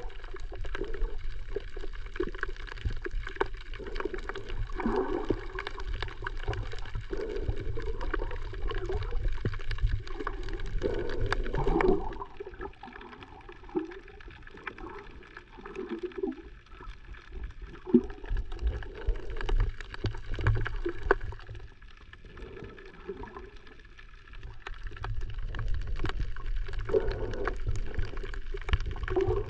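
Muffled underwater sound from a camera held below the surface while snorkeling: water gurgling and sloshing over a low rumble, with wavering muffled tones. It drops quieter for a couple of seconds twice.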